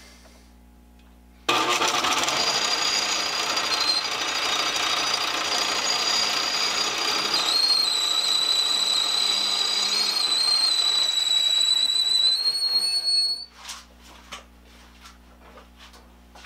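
South Bend 9C metal lathe switched on about a second and a half in, running loudly with a steady mechanical clatter and high whining tones that step up in pitch about halfway, then shut off near the end, followed by a few light clicks.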